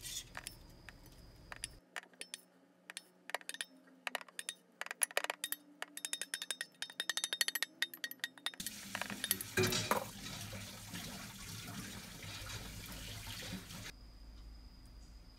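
Many quick clinks and scrapes of a utensil against a stainless mixing bowl and a glass container as seasoned cockles are scooped out. From about halfway in, a steady rushing noise like running water takes over for several seconds.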